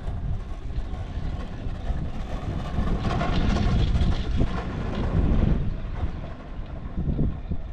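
Wind buffeting the microphone on a moving open chairlift, a steady low rumble that swells louder and brighter for a couple of seconds mid-way.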